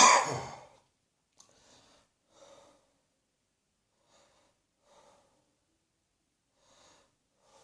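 A person coughs once, hard and loud, right at the start, then breathes quietly, with faint short breaths every second or two.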